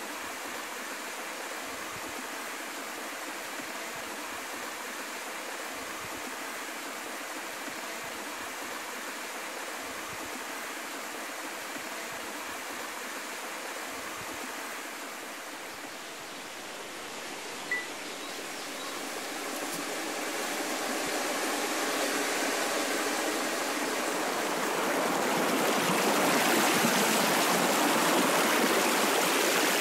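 Mountain stream rushing over rocks in a small cascade, a steady water noise that grows louder over the last several seconds. One short blip sounds about eighteen seconds in.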